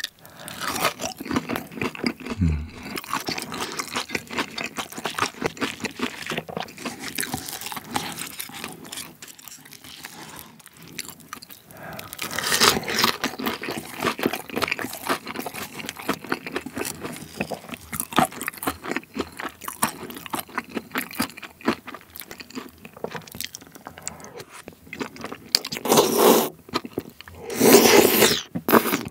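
Close-miked eating sounds: chewing of spicy tteokbokki rice cakes and fried vegetable tempura, a steady run of small mouth clicks, with a few louder slurps of rice cakes near the end.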